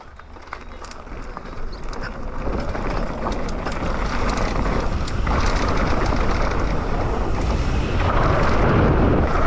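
Wind rushing over the microphone and mountain bike tyres rolling on a dirt trail as the bike picks up speed, growing louder over the first few seconds and then holding loud. A few light clicks and rattles from the bike come through.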